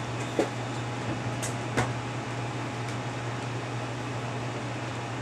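Steady low hum of a running fan or machine, with three small clicks of model locomotive parts being handled in the first two seconds.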